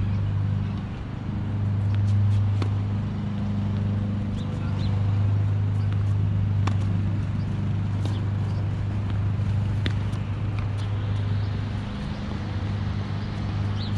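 A steady low hum runs under scattered sharp knocks every few seconds, tennis balls being struck.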